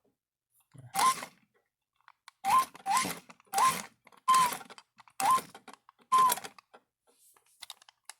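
Electronic sound effects from a battery-powered Star Wars RC toy's small speaker, just powered up: a series of about seven short, hissy chirps, each with a quick beep that jumps up in pitch.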